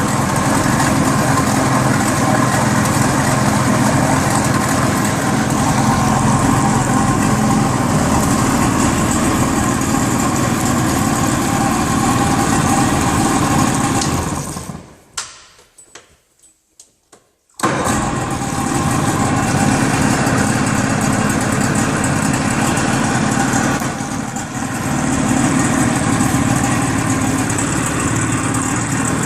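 1978 Evinrude 55 hp two-cylinder, loop-charged two-stroke outboard, freshly rebored with oversized pistons, running in a test drum. About halfway through the engine dies away to near silence for a couple of seconds with a few faint clicks, then is suddenly running again.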